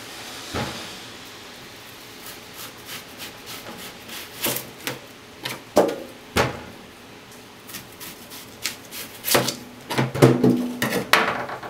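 An onion being trimmed with a kitchen knife and peeled on a plastic cutting board: irregular sharp knocks of the blade and the onion against the board, with quick clicks and rustles of handling. The knocks come sparsely at first and crowd together near the end.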